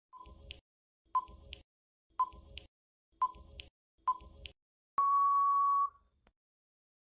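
Countdown timer sound effect: five short electronic beeps about a second apart, then one longer final beep lasting about a second, marking that the time is up.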